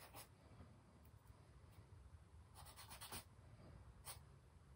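Faint, short scratchy strokes of a hand working charcoal on newsprint: a couple near the start, a quick run of several about two and a half to three seconds in, and one more near the end.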